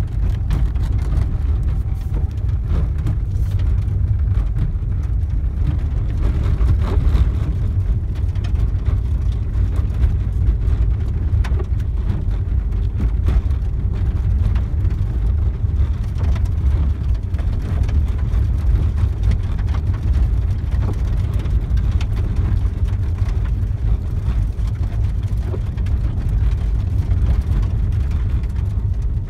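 Steady low rumble of a car driving along a snow-covered road: engine and tyre noise heard from inside the cabin, with scattered light ticks.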